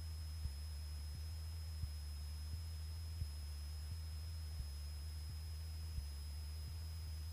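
Single-engine Cessna in cruise, heard as a faint, steady low engine drone through the cockpit intercom feed. Light irregular clicks and a thin steady high-pitched tone sit over it.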